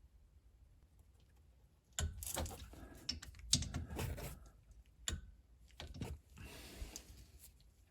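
Torque wrench ratcheting in several short runs of rapid clicks as the rear brake caliper bolts are tightened to 20 foot-pounds, starting about two seconds in.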